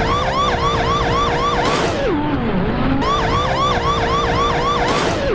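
Electronic police siren in a fast yelp, about five rising-and-falling whoops a second. It breaks off with a falling glide about two seconds in and starts again a second later.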